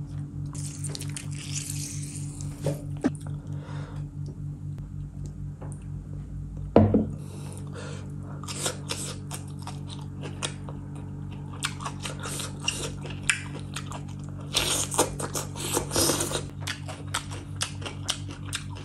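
Close-miked eating: biting, chewing and crunching of mutton curry, chilli and lettuce, over background music with a steady low pulsing beat. One sharp knock about seven seconds in is the loudest sound.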